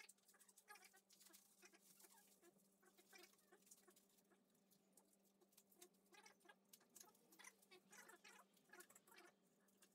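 Near silence with faint scattered rustles and small clicks of plastic wrapping and scooter parts being handled, over a faint steady hum.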